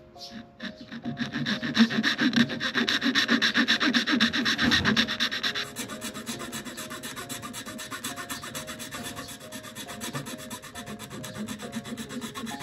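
A wooden lure body being abraded by hand, with rapid, even back-and-forth strokes on the wood. The strokes are heavier for the first few seconds and lighter after about five and a half seconds.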